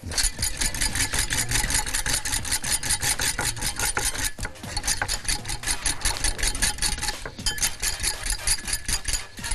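Metal balloon whisk beating egg yolks for hollandaise in a pot over a steam bath, scraping the pot in rapid, even strokes. The yolks are being whisked non-stop so they thicken without curdling.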